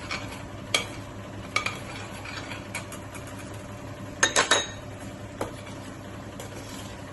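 Spoon stirring a thick jaggery and ghee mixture in a pan, scraping and clinking against the metal, with a quick cluster of louder clinks about four seconds in.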